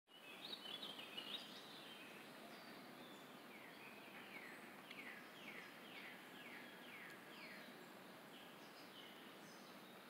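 Faint songbird calls: a quick jumble of high chirps at the start, then a run of about seven down-slurred notes, roughly two a second, from about four seconds in.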